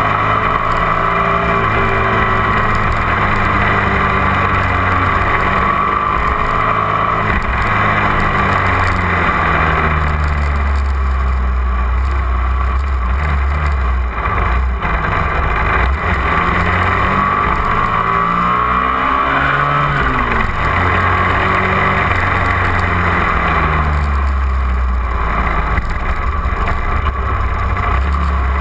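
250 cc sport motorcycle engine running under way, its pitch climbing and dropping several times as the rider accelerates and shifts gears. Wind rushes steadily across the bike-mounted microphone.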